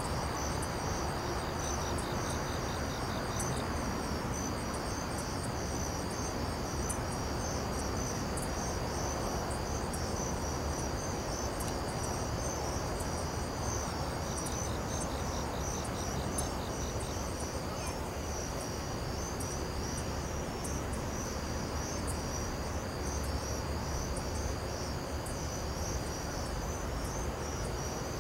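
Steady chorus of night insects, crickets chirping, with a faster pulsed trill breaking in twice, over a low background rumble.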